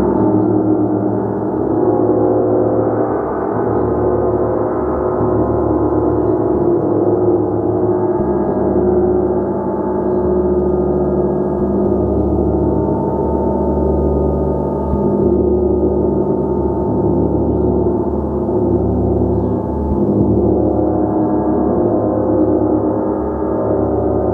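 A gong played continuously, a loud, dense wash of many overlapping sustained tones that swells and eases every couple of seconds.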